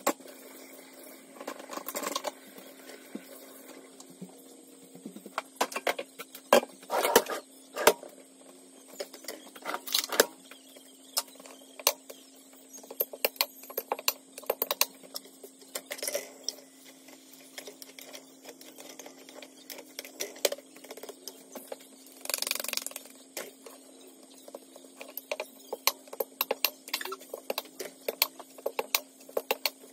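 Kitchen clatter while chapatis are made at a gas hob: irregular light knocks, taps and clicks of utensils, with a few louder clattering bursts scattered through, over a faint steady hum.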